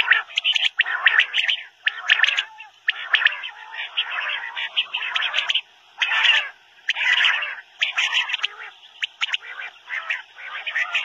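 Common quail (Coturnix coturnix) calling: short bursts of quick, sharp notes, repeated about once a second.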